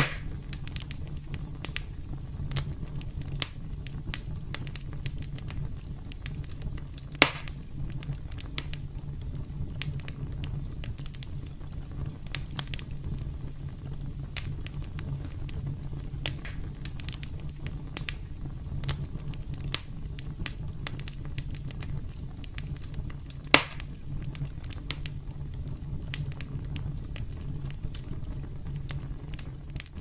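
Campfire crackling: a steady scatter of small snaps and pops over a low steady rumble, with two sharper, louder pops, one about a quarter of the way in and one about three-quarters through.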